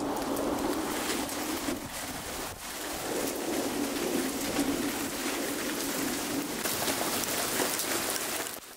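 Steady rain falling, a dense hiss flecked with many small drop hits; it fades out abruptly near the end.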